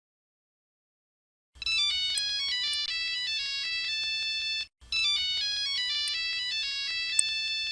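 Nokia mobile phone ringtone: a short, quick electronic melody of beeping notes that starts about a second and a half in and plays twice, with a brief break between the two runs.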